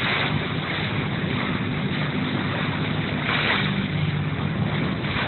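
A boat's engine running steadily, with wind and rushing water noise over it and a brief louder swell of hiss a little over three seconds in.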